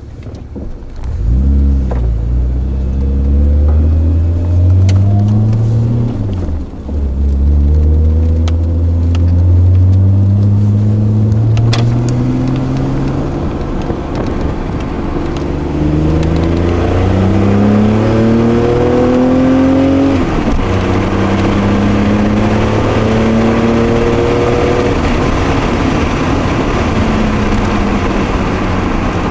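Toyota Celica Supra's 5M-E 2.8-litre straight-six with a 2.5-inch free-flowing exhaust, heard from inside the cabin as it pulls away hard about a second in. It then revs up through the gears, the pitch climbing on each pull and dropping back at each shift, about half a dozen times.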